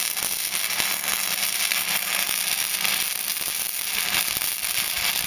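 Flux-core wire welder arc running steadily as a bead is laid: a dense, even crackling hiss.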